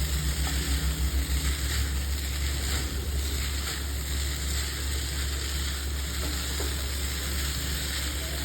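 Chow mein noodles and vegetables sizzling as they fry in a hot pan, a steady hiss over a constant low hum.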